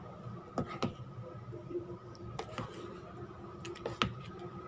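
Metal spoon clicking and scraping against a stainless steel bowl of beaten egg as a piece of meat is turned in it: half a dozen short, sharp clicks spread out, over a faint steady hum.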